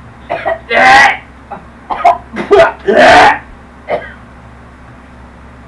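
A person coughing and clearing the throat in a run of about six rough bursts, the loudest about a second in and about three seconds in, as a reaction to eating a rotten-egg-flavoured Bean Boozled jelly bean.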